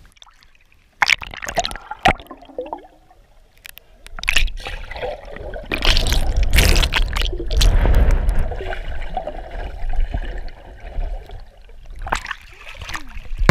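Sea water slapping and sloshing around a waterproof camera held at the surface, with sharp splashes at first. About four seconds in it turns into a muffled, rumbling underwater rush for several seconds as the camera goes under, and splashes return near the end.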